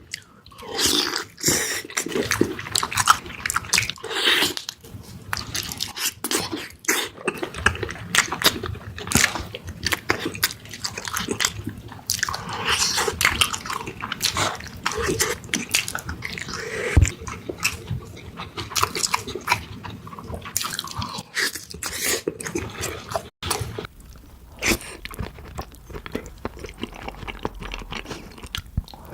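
Close-miked chewing and biting of spicy beef feet, an irregular run of many short clicks and smacks.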